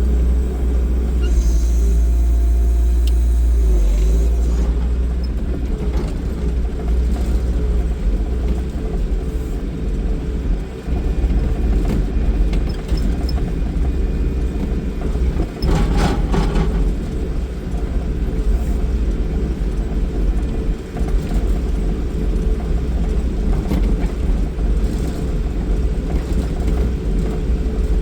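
New Holland L225 skid loader's engine running steadily, a low rumble, while the grapple loads logs into a trailer. A brief, louder noise comes about sixteen seconds in.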